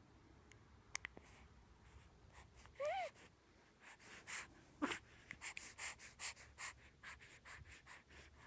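A baby's small sounds: a short squeak that rises and falls about three seconds in, then a brief falling grunt near five seconds, followed by a run of soft clicks and breaths.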